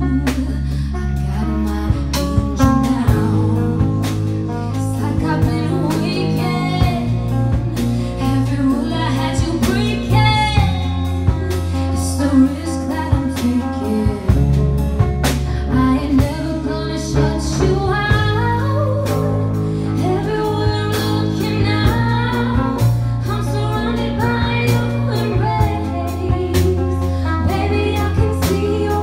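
Live band playing a song: a woman singing into a microphone over electric guitars and a drum kit, with a steady low bass line and regular drum hits.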